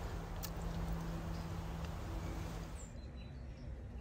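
Faint outdoor ambience: a low steady hum for about the first three seconds, then faint bird chirps.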